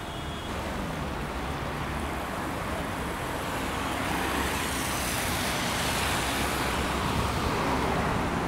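Road traffic on a wet, slushy road: tyre noise on the wet surface and engine rumble from cars and a double-decker bus passing close. It grows louder about half a second in and stays at its loudest through the second half.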